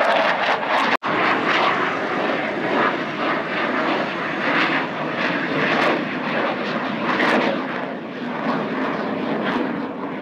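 Fixed-wing aircraft engines running overhead, a loud, even rushing noise that cuts out for an instant about a second in.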